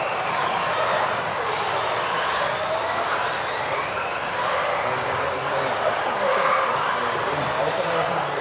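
Several 1:10 electric RC off-road buggies racing: their motors whine, many pitches rising and falling with the throttle and overlapping each other, over the hiss of tyres on the hall floor.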